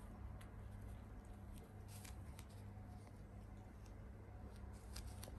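Faint, scattered rustles and light ticks of cats' paws stepping about on a creased sheet, over a steady low hum.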